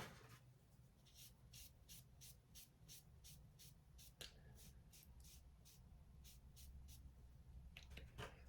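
Near silence: faint room hum with a faint, regular ticking about three times a second and one sharper click midway.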